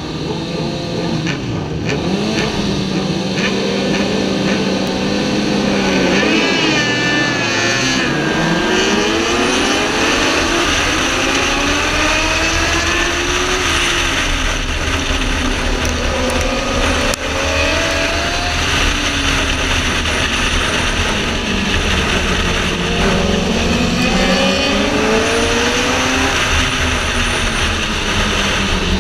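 Sport motorcycle engine running hard at high revs, its pitch repeatedly climbing and then dropping, under heavy wind rush on the microphone at racing speed.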